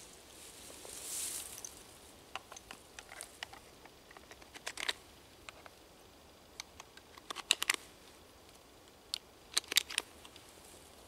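Rifle cartridges being handled and pressed into a magazine: a brief rustle about a second in, then a series of sharp metallic clicks, some single and some in quick clusters.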